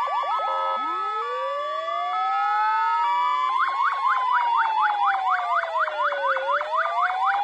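Several fire-engine sirens sounding together as a tribute from a volunteer fire brigade. A fast yelp sweeps about five times a second, while a slow wail starts low about a second in, climbs, falls away and climbs again. Two-note tones and a low pulsing note sound over it.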